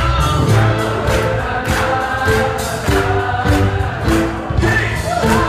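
Loud party music with a crowd singing along and clapping in time to the beat.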